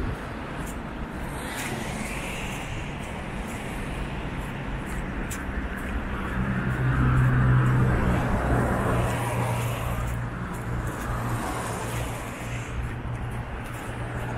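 Road traffic on a wet city street: cars running past with tyre hiss and a low engine hum, one passing close and loudest about halfway through.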